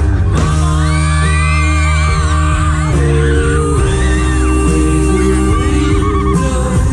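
Loud music with a steady bass and a sung, wordless vocal line.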